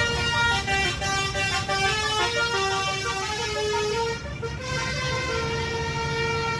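Basuri telolet bus horn playing a tune of held notes that step from pitch to pitch, over the low rumble of a bus engine.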